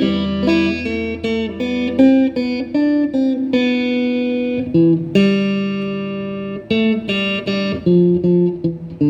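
Instrumental break in a Korean ballad: a guitar plays the melody note by note over a backing accompaniment, with no singing.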